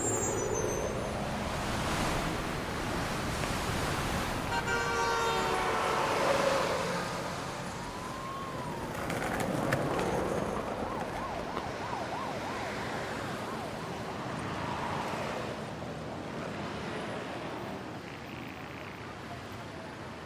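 City street traffic noise: vehicles running past, with a siren-like rising and falling tone about eight seconds in.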